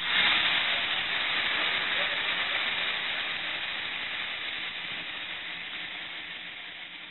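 Steam hissing steadily from the cylinder drain cocks of a 'USA Class' 0-6-0 side tank steam locomotive, loud at first and gradually dying away.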